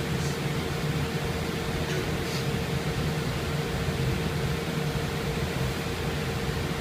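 Steady room tone of a large hall: a constant low hum and even hiss with a faint steady tone running under it. A few faint soft rustles come near the start and about two seconds in.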